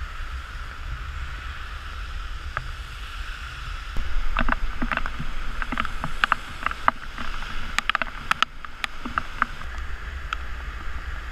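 Steady rushing noise of a flooded river in heavy rain, with low wind rumble on the microphone. From about four seconds in until near the end, a run of sharp, close ticks and taps sits over the rush.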